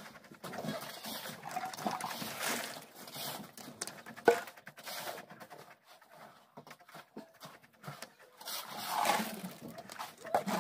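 Irregular scraping and knocking of hand work on wet concrete, a straightedge being drawn across a freshly poured slab, with one sharp knock about four seconds in.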